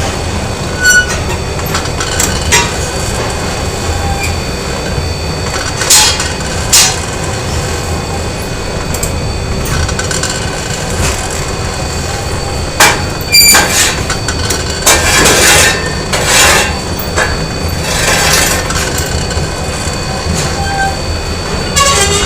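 Factory machinery ambience: a steady rumble and hum with scattered sharp metallic clanks and knocks. A couple of longer hissing rushes come about two-thirds of the way through.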